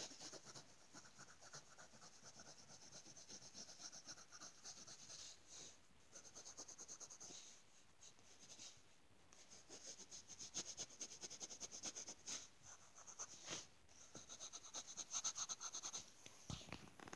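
Pencil scratching on paper in quick, faint back-and-forth coloring strokes, with a few brief pauses.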